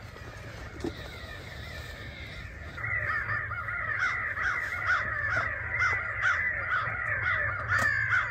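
Crow caws, faint at first, then a dense, loud run of many overlapping caws from about three seconds in that stops abruptly.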